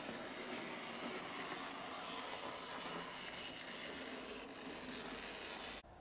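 Model railway Terrier tank locomotive running along the track: a steady running noise from its small motor and wheels that cuts off abruptly near the end.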